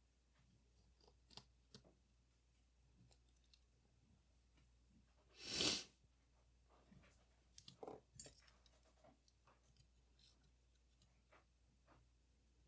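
Faint, scattered clicks and small handling noises of tools and metal parts during disassembly of a Leica IIIF camera, with a quick cluster of clicks near two-thirds of the way through. About halfway through there is one short, louder hiss that swells and fades within half a second.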